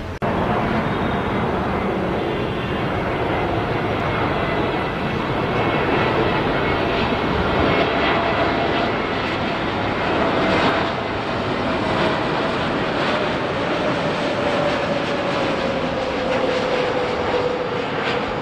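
Jet engines of an Airbus A321 airliner on final approach to land: a steady, loud rushing noise with a faint whine that slowly falls in pitch over the second half.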